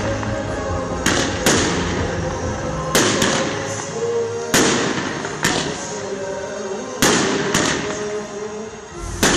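Fireworks display firing: about a dozen sharp bangs at uneven intervals, several in quick pairs, each trailing off in a short echoing tail.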